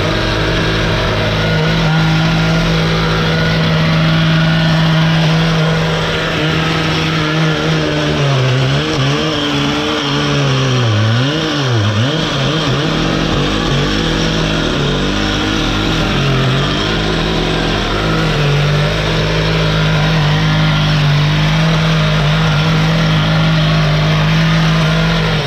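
An engine running steadily, its pitch dipping and recovering several times around the middle as it comes under load.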